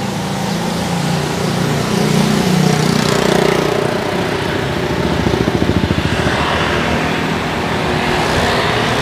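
Small motorcycle and scooter engines running close by in street traffic, over a steady rushing noise of wind on the microphone from riding. One engine's pulsing beat is loudest about five to six seconds in.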